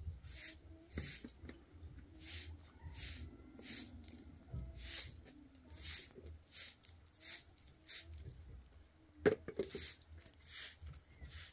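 Repeated short swishing strokes at an uneven pace, roughly one or two a second, with a single sharp knock about nine seconds in.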